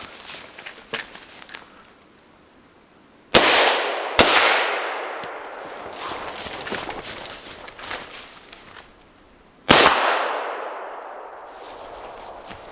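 Two rifle shots about six seconds apart, each followed by a long rolling echo. A second, fainter crack comes under a second after the first shot. Light clicks and handling noises come before the shots.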